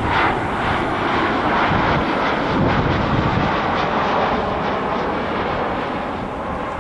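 Jet airliner's engines on landing: a loud, steady rushing noise that slowly fades toward the end.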